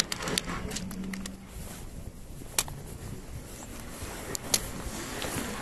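A freshly landed kurogashira flounder flopping on a concrete pier, its body slapping the concrete in a few sharp smacks: several in the first second, then single ones about two and a half and four and a half seconds in.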